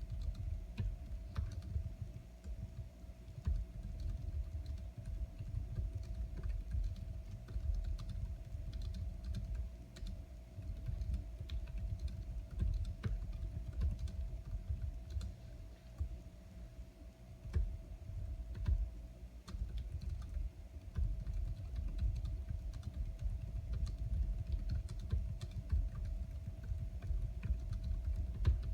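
Continuous fast typing on a compact computer keyboard: a steady patter of key presses with dull low thuds under each stroke, over a faint steady hum.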